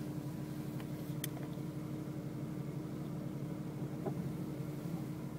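Car engine and road noise heard from inside the cabin as the car drives slowly on a snow-covered street, a steady hum with a constant tone. A light click about a second in.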